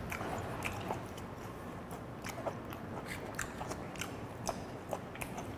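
A person chewing boiled octopus close to a clip-on microphone: irregular mouth clicks and smacks as the food is chewed.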